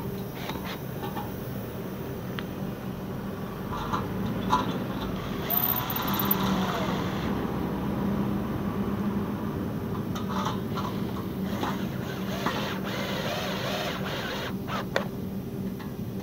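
Electric screwdriver running as it drives bolts into a square metal tube, loudest for several seconds around the middle, with sharp metal clinks as the parts are handled. A steady low hum lies underneath.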